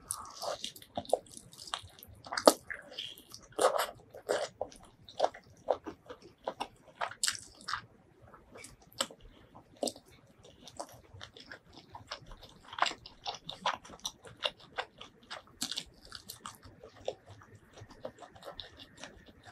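Close-miked eating: a person chewing and biting mouthfuls of spicy duck curry and rice eaten by hand, with many short, sharp, irregular mouth clicks and occasional crunches.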